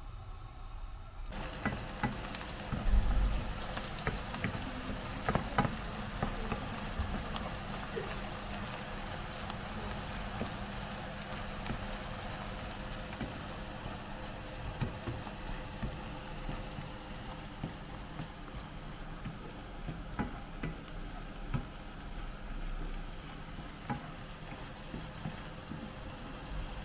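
Chopped onions sizzling in oil in a nonstick frying pan, starting about a second in, while a wooden spoon stirs them with scattered scrapes and knocks against the pan.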